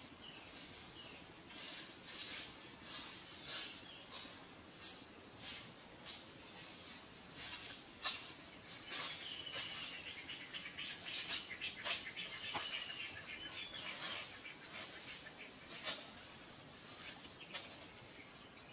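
Small birds calling with short, high, rising chirps about once a second, with a few longer falling calls now and then. Dry leaves and twigs crackle and snap underfoot at intervals as someone walks barefoot over leaf litter and tree roots.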